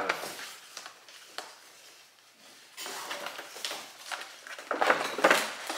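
Paper shopping bag and tissue paper rustling and crinkling as a hand rummages inside. It is nearly quiet at first with a single click, and the crackling starts about three seconds in, getting louder towards the end.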